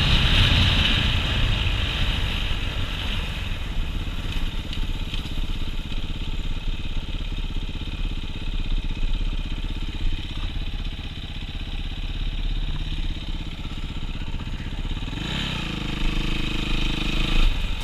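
Dirt bike engine running while riding along a street, heard from the rider's helmet camera with wind rush. It is loudest at the start, eases off and runs quieter for most of the stretch, then the revs rise again about fifteen seconds in before dropping off near the end.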